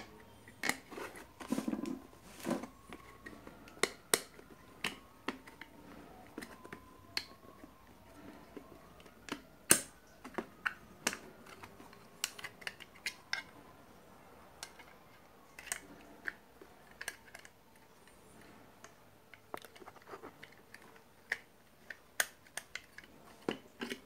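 Irregular clicks, taps and knocks of hard plastic and metal as a power adapter's circuit board and aluminium shield are handled and fitted into its black plastic case. The loudest knock comes about ten seconds in.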